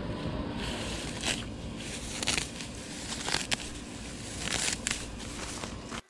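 Dry grass and weeds being pulled and torn by gloved hands from along paver edging bricks: several short bursts of rustling and ripping, over a steady low rumble.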